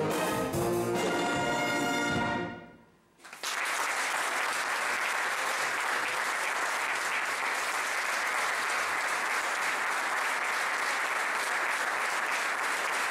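A wind band with a full brass section plays its last chords, which end about two seconds in. After a moment of silence the audience breaks into steady applause that carries on to the end.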